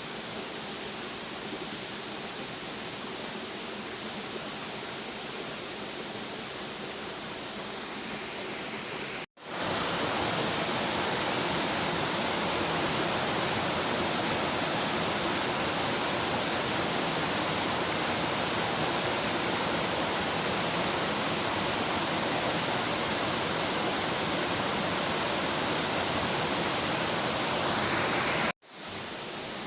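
Steady rushing of a waterfall. It cuts out abruptly about nine seconds in and comes back louder, then cuts out again near the end and returns quieter.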